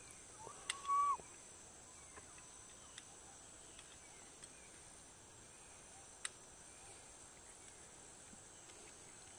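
Forest ambience: a faint, steady high-pitched drone of insects, with one short whistled call about a second in and a few faint clicks.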